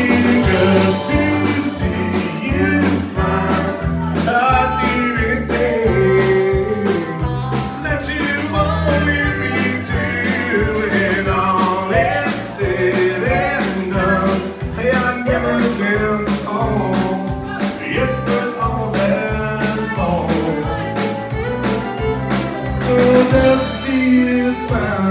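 Live country band playing: fiddle, acoustic guitar, bass guitar and a drum kit keeping a steady beat.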